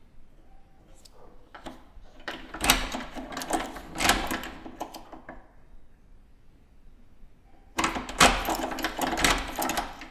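Keys rattling in a door lock as the key is worked and the lock clicks over: a few lone clicks, then two bursts of metallic clicking and jingling, the first about two seconds in and lasting a few seconds, the second near the end.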